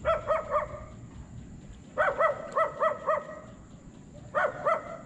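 A dog barking in quick runs of short barks: three at first, about six a couple of seconds later, then two or three more near the end.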